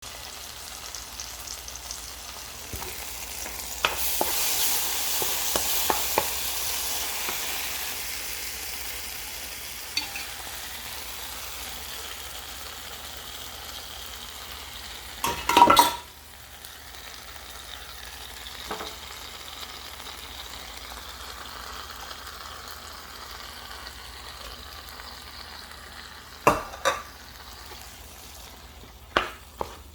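Tuna frying in a pan, a steady sizzle that swells about four seconds in and slowly eases off. Occasional sharp clicks of a utensil against the pan, with a louder clatter about halfway through and a few more knocks near the end.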